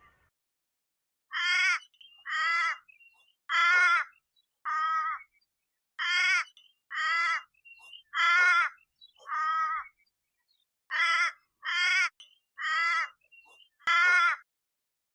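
An animal giving short, harsh calls, twelve in all, in three groups of four.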